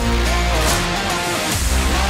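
Background music with guitar and a strong bass line.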